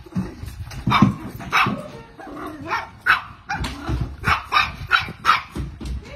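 Dogs barking: a string of short, sharp barks, about a dozen, some close together or overlapping.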